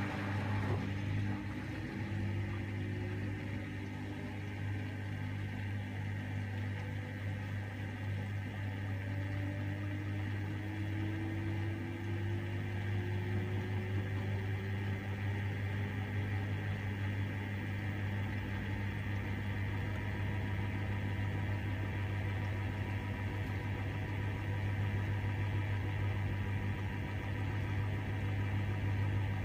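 LG TurboWash front-loading washing machine in its high-speed final spin: a steady mechanical hum with a strong low tone from the motor and spinning drum. Faint whines slowly rise in pitch during the first half.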